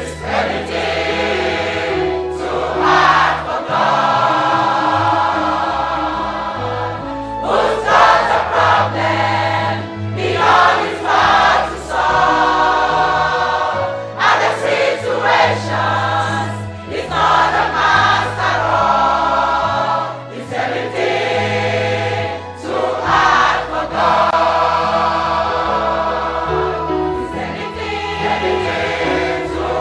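Choir singing a gospel song in long held phrases over instrumental accompaniment with a stepping bass line.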